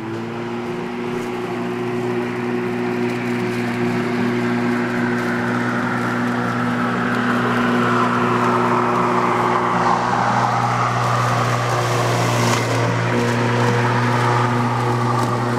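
Makita walk-behind lawn mower running steadily as it cuts grass: a constant motor hum with the whirr and hiss of the blade, growing louder as it is pushed closer.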